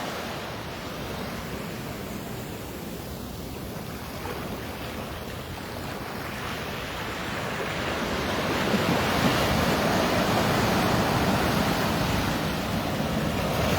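Sea waves washing onto the beach, the surf swelling louder about halfway through, with some wind buffeting the microphone.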